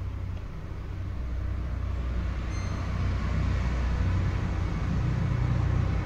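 Samsung top-load washing machine running mid-wash: a steady low motor hum with a rushing, churning noise that grows louder from about a second in.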